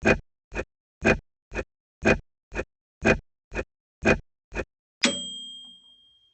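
Clock second hand ticking, about two ticks a second alternating louder and softer. About five seconds in, a microwave oven's bell dings once and rings out over about a second, marking the end of the thinking time.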